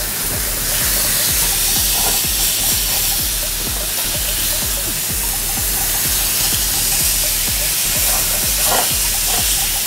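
Thin slices of sirloin steak sizzling steadily in a hot grill pan in beef and bacon fat as they are turned over with metal tongs, with light clicks of the tongs on the pan.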